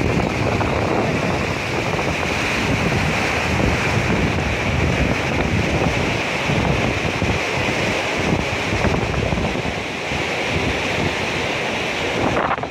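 A river in flood rushing steadily, its muddy water making a loud, even roar, with wind buffeting the microphone.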